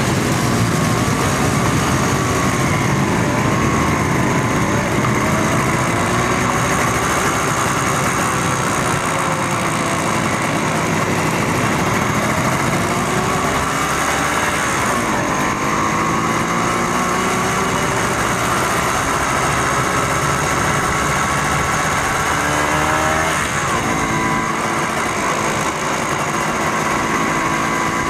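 Motorcycle engines in a slow-moving group of bikes, heard from a riding motorcycle, over steady road noise. The engine pitch rises and falls as the bikes speed up and slow down, with a dip about halfway through and a quick climb in pitch a few seconds before the end.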